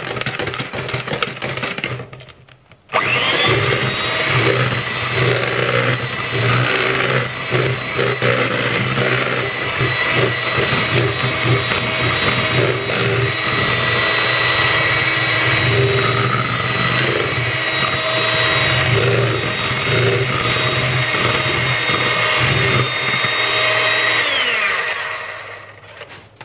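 Old electric hand mixer beating an egg-and-sugar batter in a plastic bowl. It runs briefly and cuts out about three seconds in, then starts again with a rising whine. It runs steadily at speed and winds down with a falling pitch near the end.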